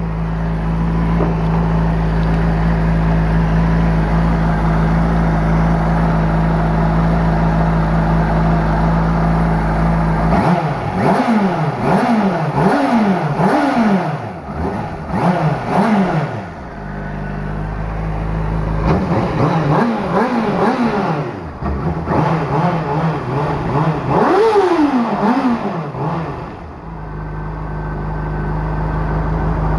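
2007 Honda CBR600RR's inline-four engine idling steadily, then revved in runs of quick throttle blips, each rising and falling back in pitch, settling to idle between runs. The highest rev comes about two-thirds of the way through before it drops back to idle.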